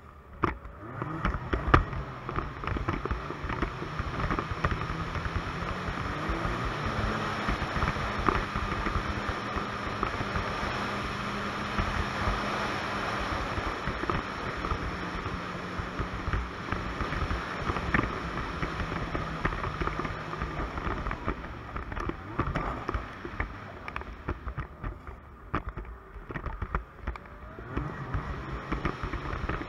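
Ski-Doo Expedition 900 ACE snowmobile's three-cylinder four-stroke engine running under way, picking up speed about a second in, holding steady, easing off about two-thirds through and speeding up again near the end. A few knocks as the sled rides over the snow.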